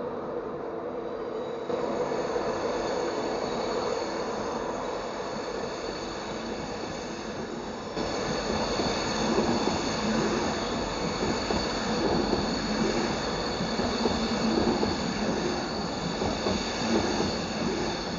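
Class 91 electric locomotive-hauled passenger train passing close by: a continuous rumble of wheels on rails with steady tones, growing louder about eight seconds in, when a steady high ringing joins it.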